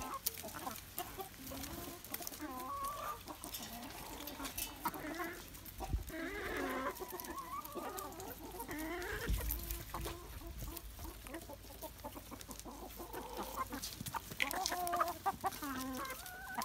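A flock of domestic chickens, hens and roosters, clucking, with many short calls overlapping.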